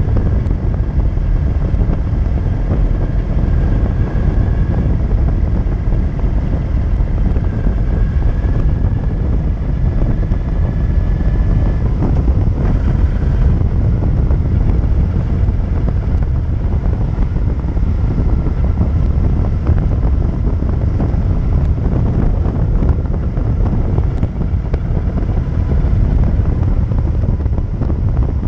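Wind buffeting the microphone of a motorcycle's handlebar-mounted camera while riding at road speed, with the bike's engine running underneath. The noise is loud and steady.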